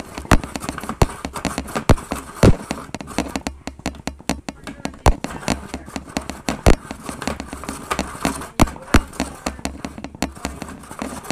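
Toy hand-cranked Snoopy snow cone maker grinding ice cubes: a continuous, irregular run of crunching clicks and knocks, with a few sharper loud cracks.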